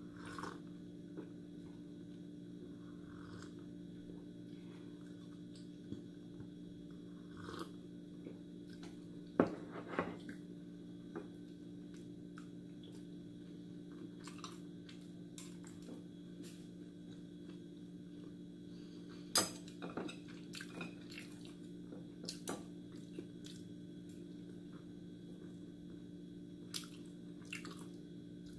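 A person eating macaroni with chopsticks: quiet chewing, with scattered sharp clicks and knocks of chopsticks and crockery, the loudest about nine and nineteen seconds in, over a steady low hum.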